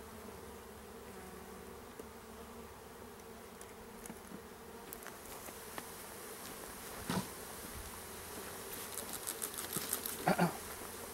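Honey bees buzzing steadily, a mass of package bees around the hive. There is a sharp knock about seven seconds in and a cluster of taps and knocks near the end.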